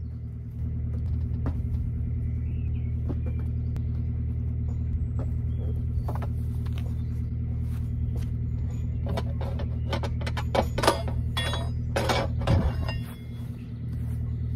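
Steady low hum made of several held low tones, with a run of sharp clicks and knocks from about nine seconds in.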